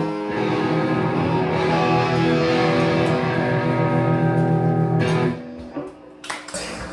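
Live rock band's guitar letting a final chord ring out, cut off about five seconds in, followed by a few soft clicks.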